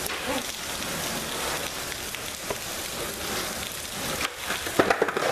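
Steady hiss of rain falling. Near the end, a few sharp clacks as a skateboard hits the concrete of a loading dock.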